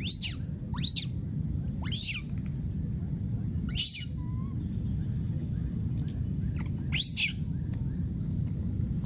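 Baby macaque screaming in short, shrill, high-pitched cries, five times, each a quick sweep in pitch, over a steady low rumble.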